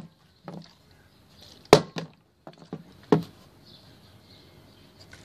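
Partly filled plastic drink bottle flipped and knocking down onto wooden decking: a sharp thud about two seconds in and another about a second later, with a few lighter knocks between.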